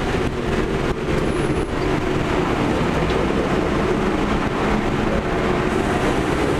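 BMW 325i's straight-six engine running at high, fairly steady revs under load, heard from inside the cabin along with wind and road noise.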